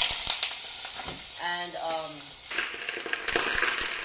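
Hot oil sizzling and crackling around a whole papio frying in a pan. About a second and a half in, a short wavering vocal sound lasts about a second over the sizzle.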